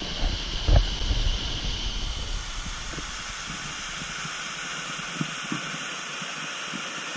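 Steady rushing hiss of steaming geothermal water cascading over rock and steam venting from the cave floor, with a brief low bump under a second in.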